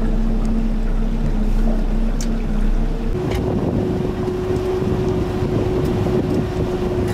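Boat's outboard motor running steadily at low cruising speed, with wind noise on the microphone. About three seconds in the steady hum abruptly shifts to a different pitch.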